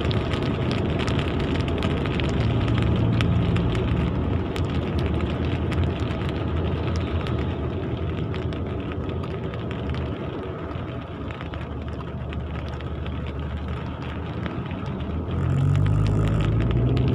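Steady rumble and hiss of road traffic, with faint scattered ticks. The low rumble grows louder about fifteen seconds in.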